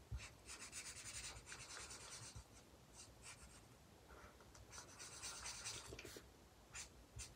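Alcohol marker nib rubbing across paper in runs of short, faint shading strokes, with a brief pause midway.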